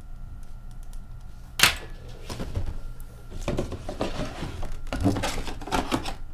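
A single sharp thunk about a second and a half in, then a busy run of cardboard and plastic rustling and clicking as a mini football helmet in a plastic bag is pulled out of its cardboard box and the box is closed.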